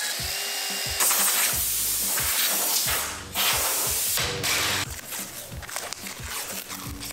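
Cordless drill/driver whining as it spins a hex bit in the clamp bolt on the handlebar controls. Then come two long bursts of loud hiss, and a run of light irregular clicks near the end.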